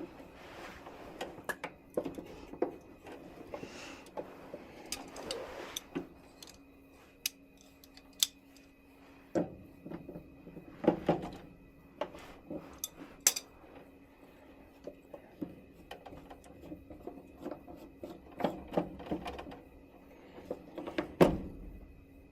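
Hands working the plastic condensate trap and its hoses off a condensing furnace: irregular plastic clicks, knocks and rustles, with a few sharper knocks about nine, eleven, thirteen and twenty-one seconds in, over a faint steady hum.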